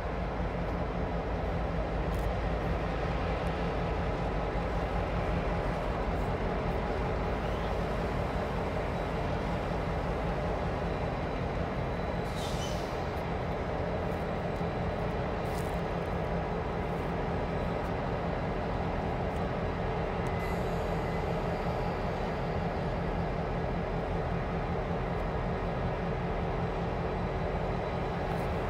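EMD diesel locomotives on a passenger excursion train (an F9A leading, with an F7B and an SD50-2 behind) running with a steady low engine drone as the train rolls slowly through a curve.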